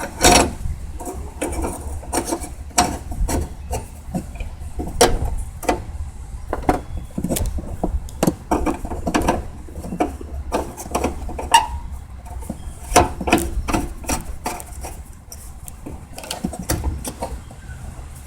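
Fuel pump assembly's retaining lock ring being turned clockwise by hand onto the fuel tank opening: a run of irregular clicks and knocks over a low rumble.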